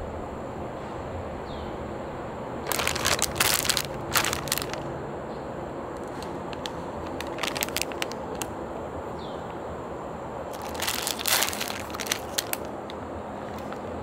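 Plastic frozen-meal packaging crinkling and crackling in three bursts as the bag is handled and turned over, and the plastic tray is slid out of the bag.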